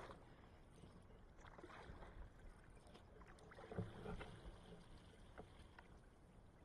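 Faint canoe paddling: quiet splashes and drips of a paddle in calm water, with a few soft knocks about two and four seconds in.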